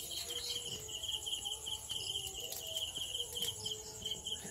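Crickets chirping in a fast, even pulsing rhythm, several chirps a second, over a fainter high insect buzz, with a couple of faint clicks.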